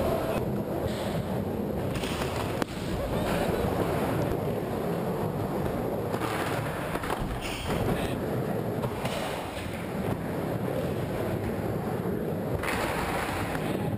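Skateboard wheels rolling and carving through a bowl, a steady rumbling roar that swells and fades as the board moves, with one sharp click a little under three seconds in.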